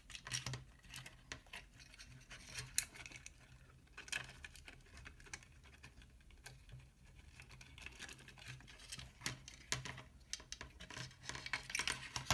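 Irregular small clicks and scratches of the plastic housing and circuit boards of an RC transmitter being handled as its electronics are taken out.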